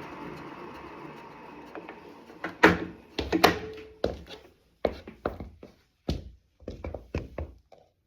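A Wahoo KICKR Bike Shift indoor smart bike's drive whirring and fading as it spins down, then a series of irregular sharp knocks and clunks, loudest a few seconds in.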